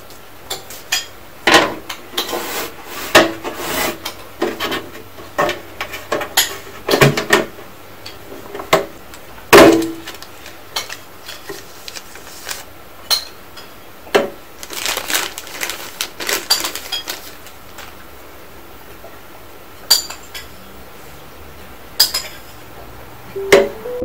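Clear plastic pet tank and its black vented plastic lid being handled and fitted together: irregular plastic clicks, taps and knocks with short bursts of rustling and scraping.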